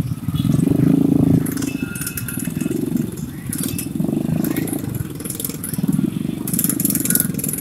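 Small motorcycle engines running at low revs as motorcycle-powered three-wheeled parade carts pass close by, swelling about half a second in, with short clattering noises over them.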